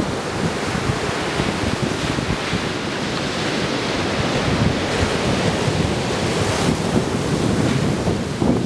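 Ocean surf breaking and washing up a sand beach, with gusty wind buffeting the camera's built-in microphone.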